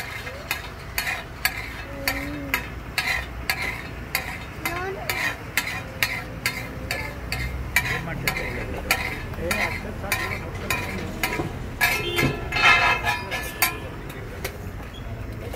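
Metal spatulas striking a flat iron griddle in a steady rhythm, about three strikes a second, over the sizzle of frying pav bhaji. A denser clatter comes near the end, then the strikes stop.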